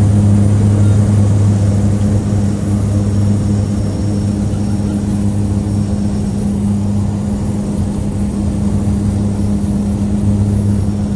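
DHC-3 Otter floatplane's engine and propeller running steadily at high power during its takeoff run on the water, heard from inside the cabin as a steady low hum.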